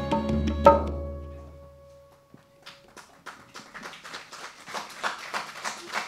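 Live Kathak accompaniment of drum and held melodic tones ends on a sharp drum stroke under a second in and rings away, the music falling silent by about two seconds in. Then a soft, even rattling pulse starts, about three or four beats a second, slowly getting louder.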